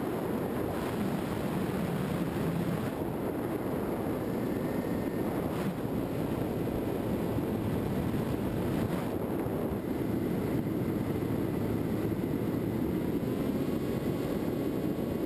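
Onboard sound of a Skywalker FPV model plane in flight: a steady rush of air over the camera mixed with the drone of its electric motor and propeller.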